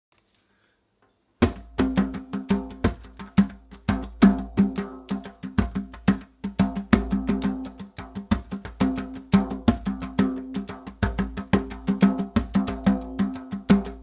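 Hand drum with a Remo Fiberskyn head played with the fingers and palms: a fast, unbroken stream of sharp strokes, several a second, with the head ringing at a low pitch under them. The playing starts about a second and a half in, after a moment of near silence.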